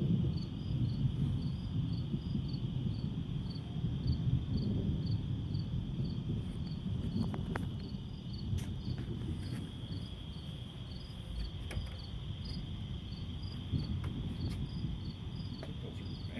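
Crickets chirping, an even run of about two to three chirps a second over a steady high insect trill, with a low rumbling noise underneath.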